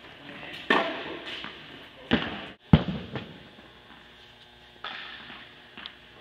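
Tennis ball being struck by a racket and bouncing on an indoor hard court: several sharp hits, each with a short echo, the loudest a little under three seconds in and quieter ones later.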